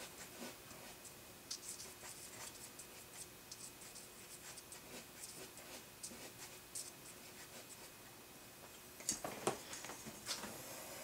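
An eraser tip rubbing lightly on drawing paper in short, faint, scratchy strokes at irregular intervals, lifting highlights out of charcoal-shaded hair. A few louder rubs and knocks come near the end.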